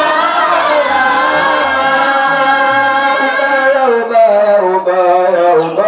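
A solo voice sings an Islamic devotional chant in long, ornamented held notes in the Arabic maqam style, over a low sustained accompanying tone that shifts in steps. No frame drums are heard striking.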